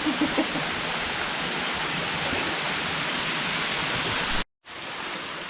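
Waterfall rushing, a steady hiss of falling water. It cuts off abruptly a little after four seconds, then comes back quieter.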